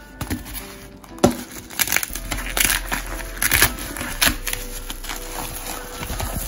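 A plastic bubble mailer being handled and pulled open: crinkling and rustling of the plastic, with a sharp snap about a second in and bursts of crackling in the middle.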